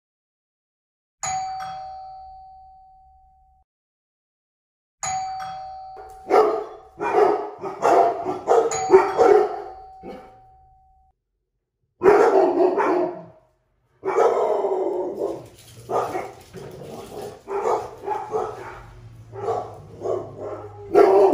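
A two-tone doorbell chime rings twice, about a second in and again about five seconds in, each note fading away. A dog then barks repeatedly, in bursts, through to the end.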